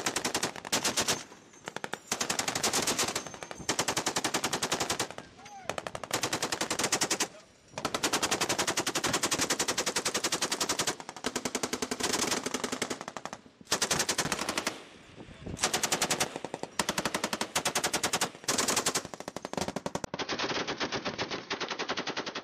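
Machine guns on a patrol boat firing long bursts of automatic fire, one burst after another with short pauses between.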